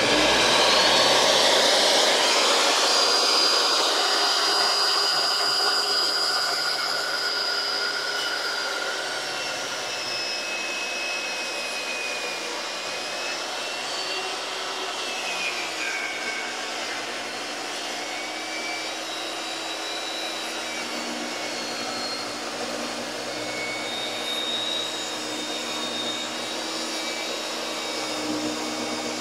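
Hercules 10-inch compact job site table saw switching on suddenly and running steadily, its motor whine wavering in pitch as a pressure-treated 2x4 is fed through the blade in a lengthwise rip cut.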